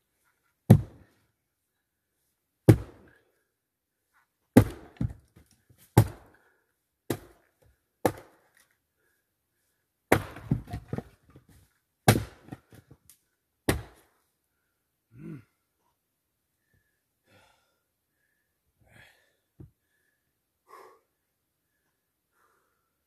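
Fiskars X25 splitting axe striking eucalyptus hardwood: about ten sharp chopping blows one to two seconds apart, some with a short clatter after. The blows stop about fourteen seconds in, leaving only a few faint knocks and rustles.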